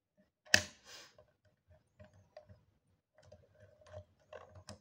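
Hard plastic clicks and light knocks from a PULUZ waterproof diving phone case being handled, with one sharp clack about half a second in, the loudest.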